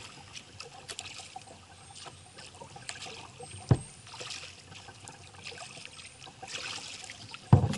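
Kayak paddling: water splashing and trickling off the paddle blades in recurring strokes, with two dull knocks, one about halfway through and a louder one near the end.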